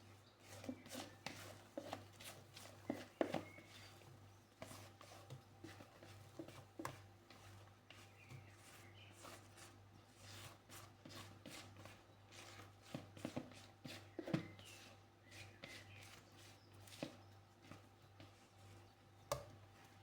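Kitchen work: faint, irregular knocks and taps of utensils, several a second at times, with a steady low hum underneath.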